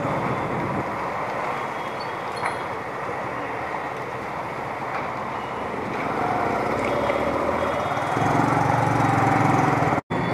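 Motorcycle ridden at low speed on a town street: its engine runs under a steady wash of road and wind noise. About eight seconds in, a louder, steady engine hum comes in.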